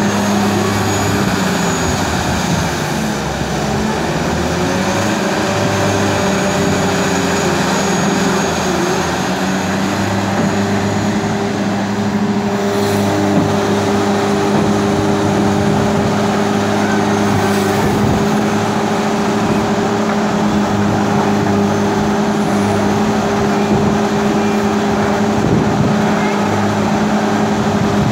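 Large diesel engine of a Tata Hitachi EX600 excavator running with a steady drone while the machine works its arm and bucket.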